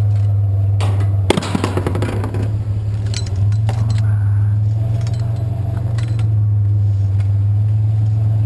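Scrap metal rattling and clanking as it is pulled apart, in a burst about a second in that lasts about a second, with a few lighter clinks after. Under it, a steady low engine hum.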